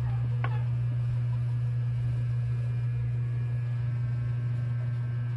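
A steady, loud low electrical hum, mains hum picked up in the recording chain, with one brief faint squeak about half a second in.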